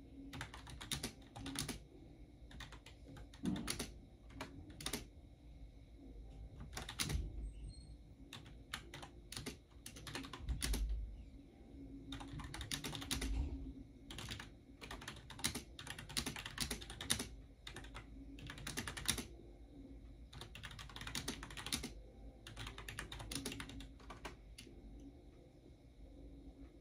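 Typing on a computer keyboard: bursts of rapid key clicks separated by short pauses.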